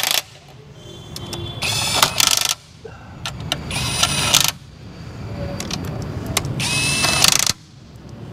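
A small power tool running in three short bursts of about a second each, with a whine in each burst, as fasteners are run in during reassembly of the engine top.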